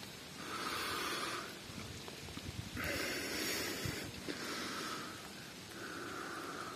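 A person breathing close to the microphone, slow audible breaths in and out about every second and a half.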